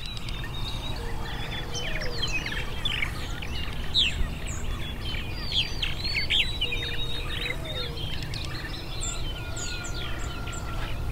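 Many songbirds chirping and trilling together in a busy chorus of short, quick calls, over a steady low rumble.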